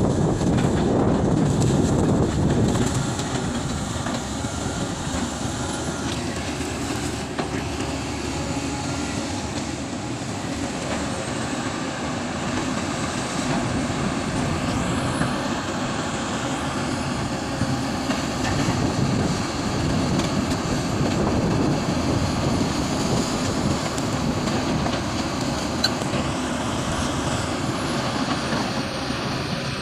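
Sumitomo SH350 hydraulic excavator working, its diesel engine running steadily.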